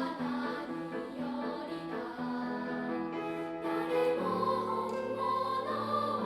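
Children's choir singing a three-part chorus with piano accompaniment, holding sustained notes; about four seconds in a new, fuller chord enters.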